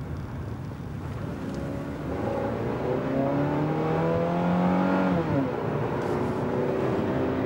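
Car engine and road noise heard from inside the cabin: the engine note rises slowly as the car accelerates, then drops back about five seconds in.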